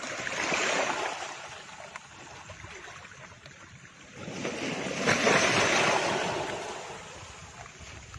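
Two swelling whooshes of rushing, surf-like noise, one about a second in and a longer, louder one around five seconds in, each rising and then fading.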